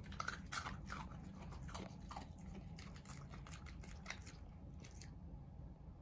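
Japanese Spitz chewing a small crunchy boro biscuit treat: a quick run of crunches, densest at first, that thins out and stops about five seconds in.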